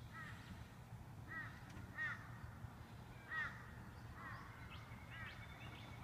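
A crow cawing repeatedly: about six short, falling caws roughly a second apart, over a faint low background rumble.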